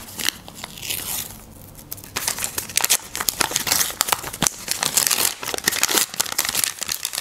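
Handmade paper surprise packet being opened by hand: dense crinkling and tearing of paper, with a brief lull about a second and a half in before the crinkling picks up again.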